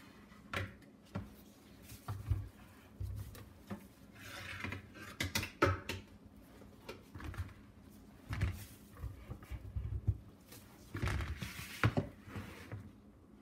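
Scattered light knocks, taps and rustles of gloved hands moving carrots and apples on a tray and setting plastic cups down on the counter; the juicer is not running.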